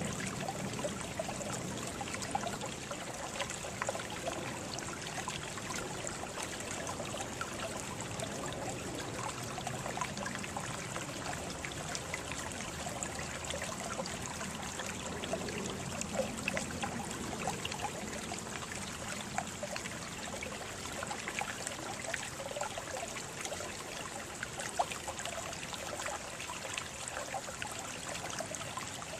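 Water trickling steadily, with many small splashes.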